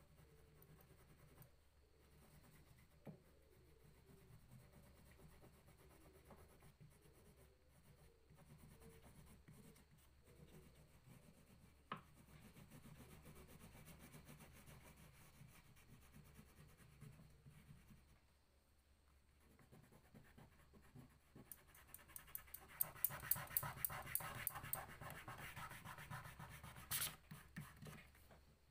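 Brown crayon scribbling on drawing paper, shading in a tree trunk with back-and-forth strokes. The strokes are faint at first, then come louder and faster in the last several seconds.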